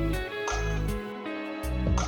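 Background music: a song with sustained chords, deep bass and a steady drum beat.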